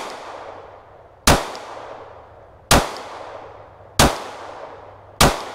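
Glock 26 9mm pistol firing four single shots, about one every 1.3 seconds, each sharp report followed by a fading echo.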